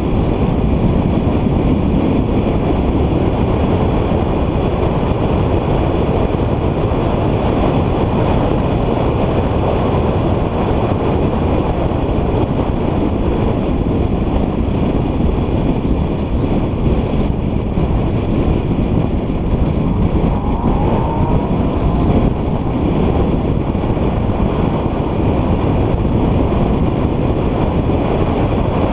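Car driving at speed, with a steady, loud mix of engine, tyre and wind noise. A short rising whine comes about two-thirds of the way through.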